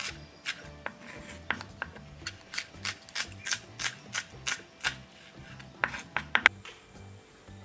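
Kitchen knife slicing a leek stalk into thin lengthwise strips on a wooden chopping board: a run of sharp taps of the blade against the board, about three a second, stopping about six and a half seconds in.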